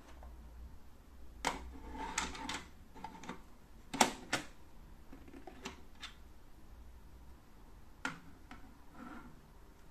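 The lid of a moulded plastic cauldron lamp being handled: picked up, set down on the cauldron's rim and lifted off again, giving a series of hard clicks and clacks, the loudest about four seconds in as the lid lands.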